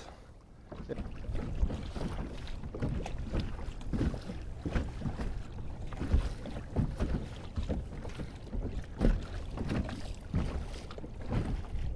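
Water splashing and lapping against a kayak's hull as it moves along, in irregular small splashes, with some wind on the microphone.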